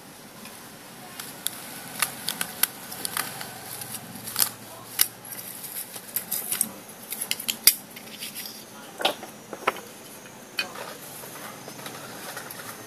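Thin metal of a cut-open drink can being handled and pressed by hand: irregular light metallic clicks and crinkles, some in quick clusters.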